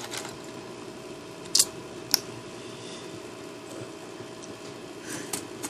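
Two sharp plastic clicks about half a second apart, typical of Lego pieces being handled and snapped together, with a few fainter ticks near the end, over a steady low room hum.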